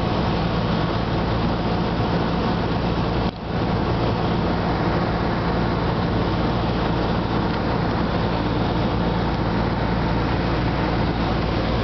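Cessna 172 Skyhawk's piston engine and propeller droning steadily, heard inside the cabin in flight on approach. The level dips briefly about three and a half seconds in.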